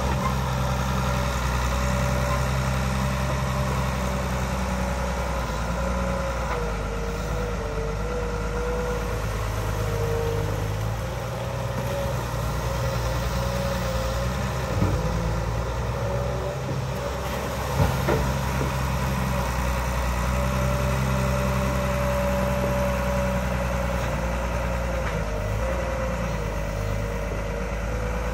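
Barge-mounted excavator's diesel engine running steadily, its note shifting now and then as the arm and bucket work. Two short knocks stand out around the middle.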